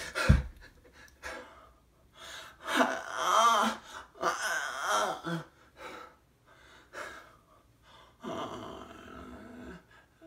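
A man's gasps and strained wordless vocal sounds, with two longer wavering cries a few seconds in and a breathy stretch near the end. A loud thump comes just after the start.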